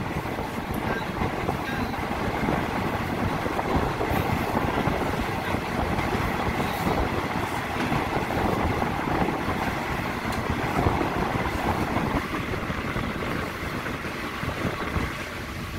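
Passenger train running along the track: a steady rumble of wheels on rails mixed with air rushing past the open window.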